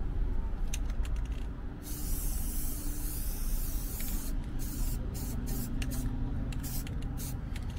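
Aerosol spray-paint can spraying through a stencil onto a plastic laundry cart. About two seconds in comes one long hiss lasting about two seconds, followed by a string of short sprays in quick succession, kept light to avoid runs.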